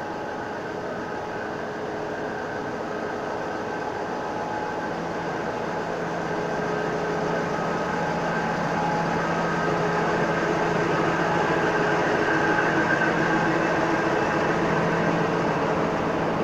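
Two diesel-electric locomotives, 4107 and 4505, hauling a passenger express past at low speed, their engines running under power with the rumble of the train rolling on the rails. The sound grows steadily louder over the first ten seconds as the locomotives come alongside, then holds.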